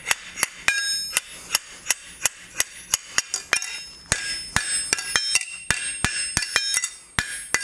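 Blacksmith's hand hammer striking hot steel flat stock on an anvil in a steady rhythm, about two to three blows a second, many of them with a short metallic ring. The blows are pushing heated material back behind the split T of a fork blank.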